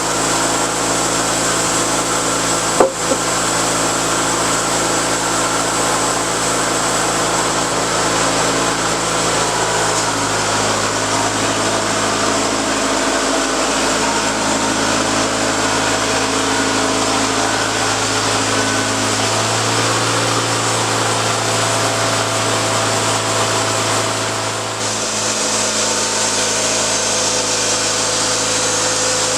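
Portable sawmill running and cutting: a steady small-engine drone with the blade working through wood, its pitch shifting partway through as the load changes. One sharp click about three seconds in.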